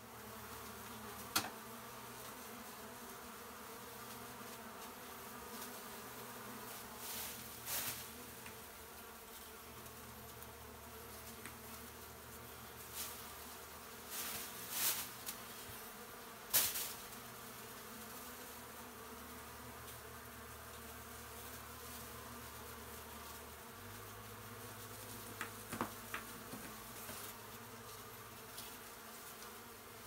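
Honey bee colony buzzing steadily, an exposed hive in an opened wall, with a few short knocks and clicks from work on the wall.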